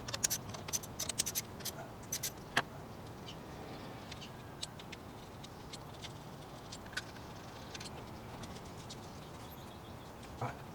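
Light clicks and taps of hand tools and small metal and plastic parts as ignition coil packs are undone on the engine. The clicks are thick in the first couple of seconds, then sparser, with one more knock near the end.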